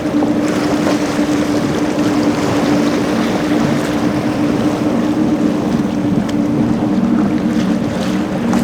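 Motorboat engines running steadily, with a constant hum, over wind and rushing water noise.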